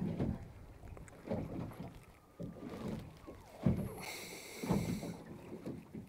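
Water lapping against the hull of a small boat, with soft low slaps about once a second. A brief high rasp comes about four seconds in.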